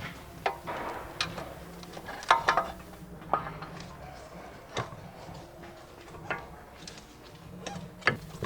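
Irregular metallic clinks and knocks, a dozen or so, as the new wheel hub assembly and CV axle are fitted back together in the steering knuckle, the axle sliding back into its splines.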